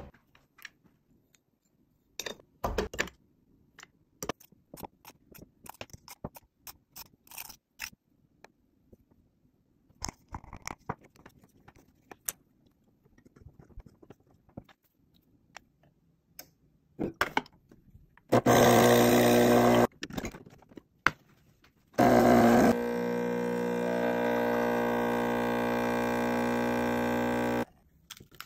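Light clicks and scrapes of a portafilter being handled and coffee tamped, then the Gaggia Gran Deluxe espresso machine's vibratory pump runs: a loud buzz for about a second and a half, a short gap, then a steady hum for about five seconds as the espresso shot is brewed.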